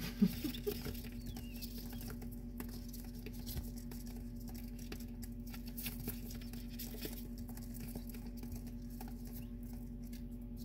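Tiny feet of newly hatched quail chicks pattering and scratching on sheets of paper as they shuffle about: many light, irregular ticks. A steady low hum runs underneath.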